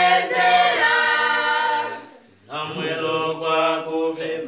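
Unaccompanied choir singing: long held phrases, with a short break about two seconds in before the next phrase starts.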